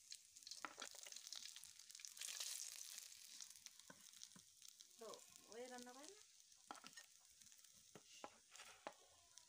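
Taki fish (spotted snakehead) frying in hot oil in an iron karahi, sizzling faintly, with short clicks and scrapes of a steel spatula against the pan as the fried pieces are lifted out.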